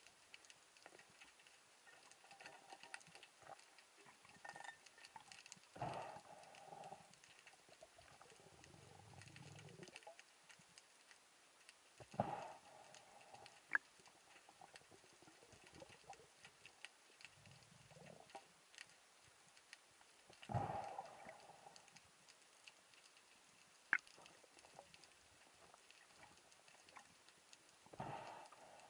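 Faint underwater ambience heard through a camera's waterproof housing: a steady crackle of fine clicks, broken by a few dull thumps several seconds apart and a couple of sharp ticks.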